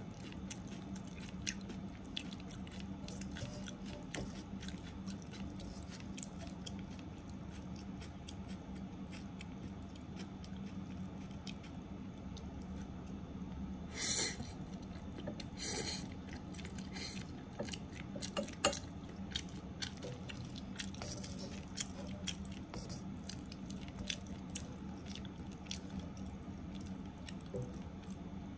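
Spaghetti stir-frying in a wok, turned with a wooden spatula and chopsticks. A steady patter of small crackles and squishy stirring runs over a low hum, with a few louder strokes of the spatula around the middle.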